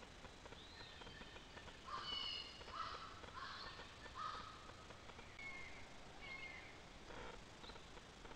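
Faint wild bird calls: a run of four harsh, caw-like calls about two seconds in, then a couple of short, higher chirps a little past the middle.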